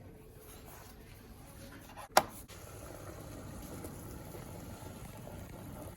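Pot of water bubbling at a rolling boil, a low steady hiss, with a single sharp knock a little over two seconds in.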